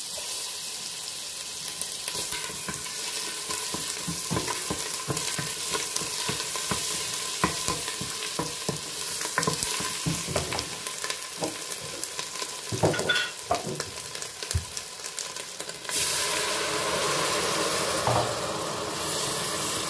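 Tomato paste sizzling in melted butter and oil in a hot stainless steel pot, stirred with a wooden spoon that knocks and scrapes against the pot. About 16 seconds in the sound jumps to a louder, steady hiss as water goes into the hot fat and steam rises.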